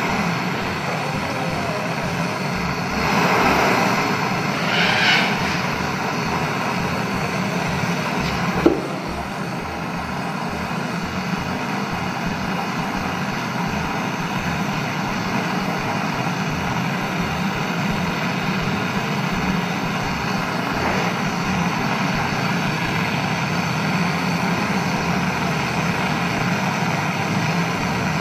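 A motor running steadily with a low hum, with one sharp click about nine seconds in.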